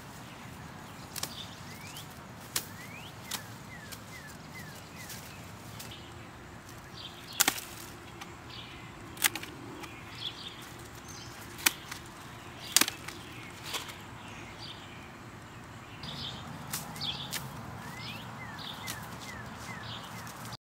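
Dry, gone-to-seed arugula plants being pulled up and handled: the brittle stalks and seed pods rustle, with sharp snaps and cracks every second or two, the loudest in the middle.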